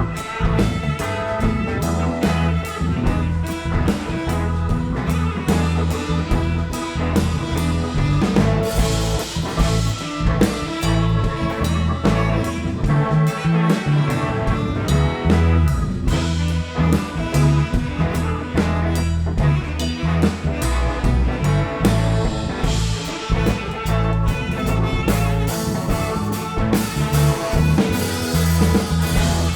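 Live band playing an instrumental section of a blues-tinged country-rock song: guitar over drum kit, with no singing.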